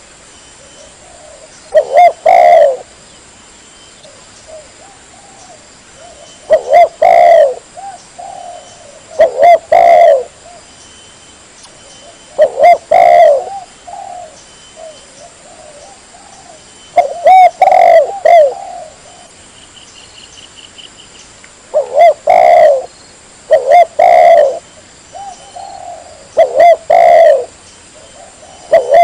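Spotted dove (tekukur) cooing: about eight loud, clustered phrases of low coos a few seconds apart. It is recorded close and hot enough to reach full scale.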